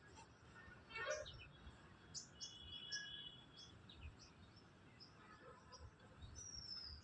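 Faint, scattered chirps and whistles of small birds, short high notes coming every second or so, with a falling whistle near the end.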